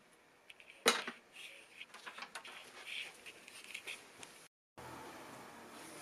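A sharp click about a second in, then a few seconds of light handling noise: small clicks and rustles. The sound cuts out briefly near the end.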